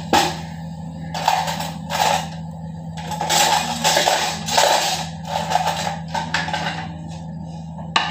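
Aluminium pressure cooker on a gas flame, hissing in repeated uneven spurts as steam escapes around its weight valve; the spurts are longest in the middle.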